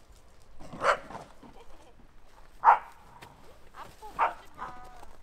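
A dog barking: three short barks spaced a couple of seconds apart.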